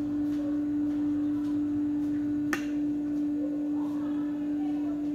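A steady single-pitched hum, with one sharp click about two and a half seconds in.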